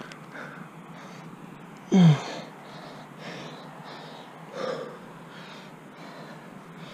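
A climber's effortful grunt about two seconds in, loud and dropping in pitch, made while hand-jamming up a granite crack. A softer breath or gasp follows near five seconds, over a steady hiss.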